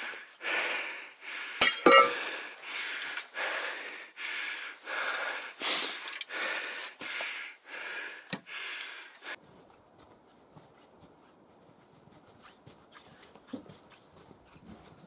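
A man breathing hard close to the microphone, panting in and out about twice a second, with two sharp knocks about two seconds in. The breathing stops abruptly about nine seconds in, leaving a faint background with light ticks.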